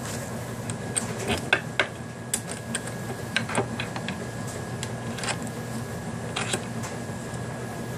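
Irregular metallic clicks and knocks as a torque wrench is handled and clamped in a bench vise, over a steady background hum.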